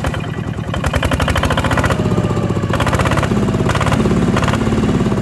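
New Kubota ZT155 single-cylinder diesel engine running just after starting: a rapid, even chugging beat that quickens over the first second, then holds steady.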